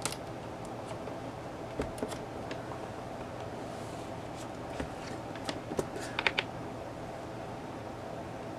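A steady low room hum with scattered light clicks and taps, including a quick run of them about six seconds in.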